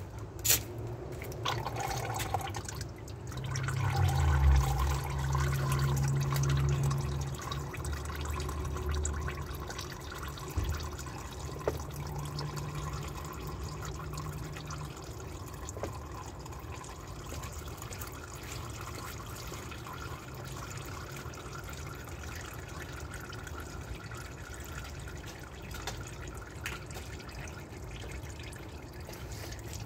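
Used engine oil trickling and dripping in a thin stream from the Porsche Cayenne's sump into a drain pan, near the end of the drain. A low hum sounds for several seconds, starting about four seconds in.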